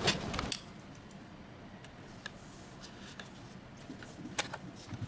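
A short burst of handling noise at the start, then scattered light clicks and taps, the sharpest about four seconds in, as a swivel bracket arm is handled and fitted against the back of a small display.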